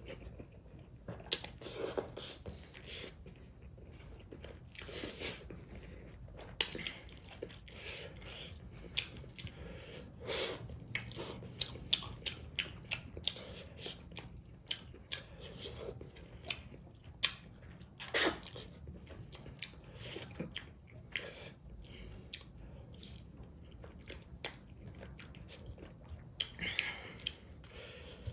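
Close-miked chewing and biting, with frequent irregular sharp crunches and wet mouth clicks.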